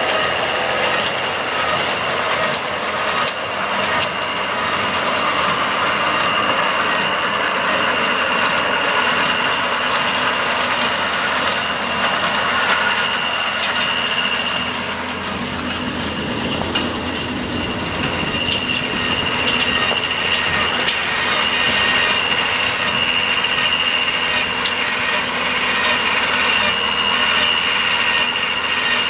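Case 1030 tractor engine running steadily under load while it drives a New Holland small square baler baling wheat straw, the baler clattering with repeated knocks as it packs and throws bales. A steady high-pitched whine runs under it.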